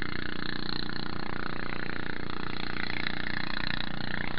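A boat engine running steadily at speed, with water rushing and splashing past the hull.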